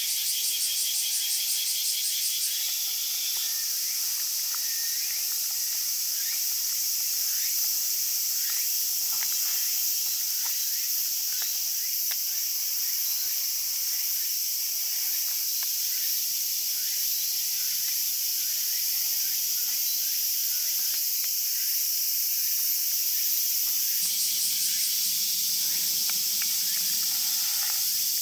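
Summer cicada chorus: a loud, steady high-pitched hiss, with pulsing trills near the start and again about three-quarters of the way through.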